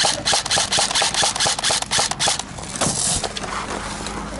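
Airsoft electric gun (AEG) firing rapid single shots, about five a second, which stop about two and a half seconds in.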